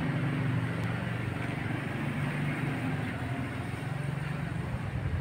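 A vehicle engine running steadily, a low hum with general street noise over it.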